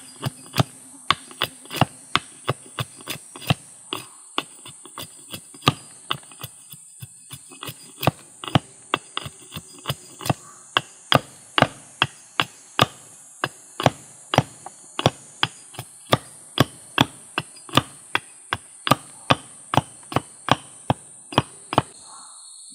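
Small hatchet hewing along the edge of an upright split wooden stave, shaving it to shape: sharp woody chops about two a second, stopping near the end. A steady high drone of insects runs underneath.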